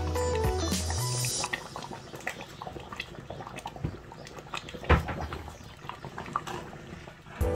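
Background music for about the first second and a half, then a pot of chicken pepper soup simmering: soft bubbling with small pops and ticks, and one sharper tap about five seconds in. The music comes back just before the end.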